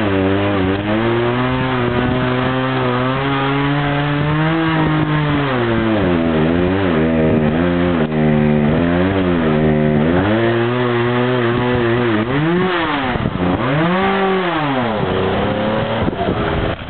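Chainsaw engine running at a steady pitch for about five seconds, then revving up and down repeatedly in long swells, with the deepest swings near the end.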